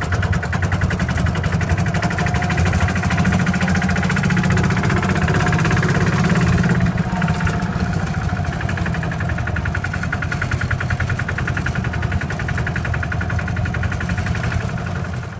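Small four-wheel-drive diesel dumper's engine running as it drives, with a fast, even knocking beat; louder for the first half, easing off a little later on.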